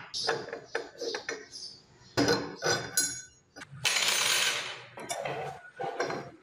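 Chrome-plated adjustable wrench and a bent steel wire being handled on a work table: a string of metallic clinks and knocks, with a longer rustling stretch lasting about a second around the middle and a sharp knock at the end.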